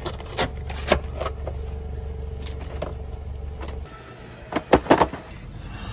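A vehicle's engine running steadily under a series of sharp knocks and clanks; the engine hum cuts off about four seconds in, and two or three louder knocks follow close together near the end.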